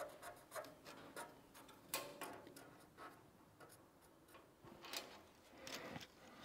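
Faint, scattered small clicks and rubs from handling a steel tape measure and marking pen against the truck cab's sheet metal.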